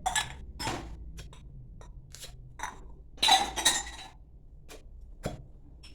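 Glass cupping cups being taken off the skin after fire cupping and set down, clinking against each other in a series of short knocks, with the loudest clatter and a brief ring about three and a half seconds in.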